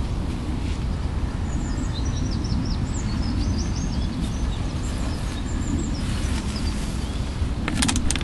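Small songbirds chirping and twittering over a steady low outdoor rumble. Near the end a quick cluster of sharp clicks and knocks as the camcorder is handled and swung round.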